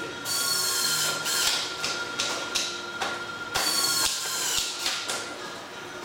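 Dauphin office swivel chair being sat in, leaned back and pushed aside on its casters: a series of short scraping and squeaking noises from its mechanism and casters.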